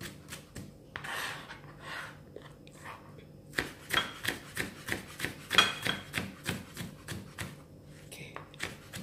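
Kitchen knife chopping tomato on a plastic cutting board. Soft scraping comes first, then from about three and a half seconds in a steady run of quick knocks of the blade on the board, about four a second.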